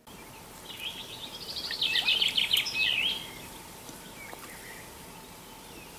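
A songbird singing a fast, trilling phrase for about two and a half seconds, starting just under a second in, with a single faint chirp a little later, over steady outdoor background hiss.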